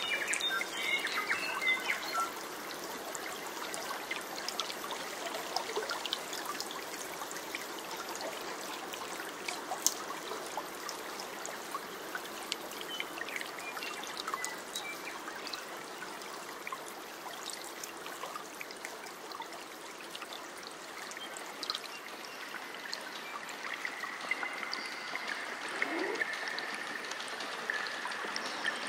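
A small stream trickling and babbling over stones, steady throughout.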